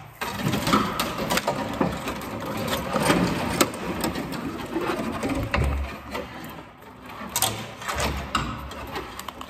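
Old wires being pulled down from a ceiling and twisted into a bundle by hand: a busy rattling, scraping and clicking of wire, with two short low thumps partway through.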